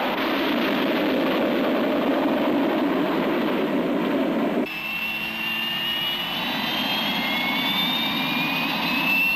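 Steady roar of a jet aircraft's engines, which cuts off abruptly about halfway through and gives way to a high jet turbine whine that rises slowly in pitch.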